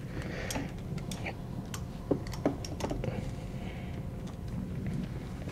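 Handling noise: scattered light clicks and knocks as the camera and studio gear are moved and set down, over a faint steady low hum.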